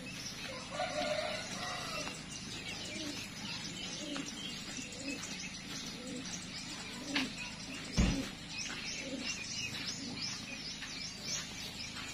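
Small birds chirping repeatedly, with chickens calling now and then. A single sharp thump about eight seconds in is the loudest sound.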